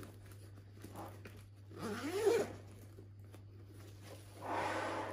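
Zipper of a Cabin Max backpack's main compartment being pulled open around the bag, in two runs: a short one about two seconds in and a longer one near the end.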